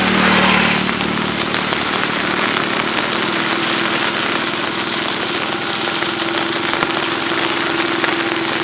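Heavy rain falling steadily on flooded paddy fields, a dense even hiss, with a faint steady hum underneath.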